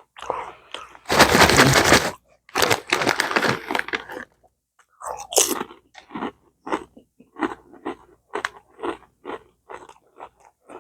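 Close-up biting and chewing of crisp Lay's potato chips. Two loud crunching bites come in the first four seconds, then steady chewing at about two crunches a second.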